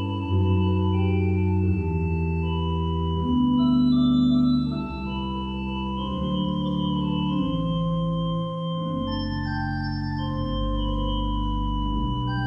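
Organ playing slow, sustained chords that change about every second over a held bass.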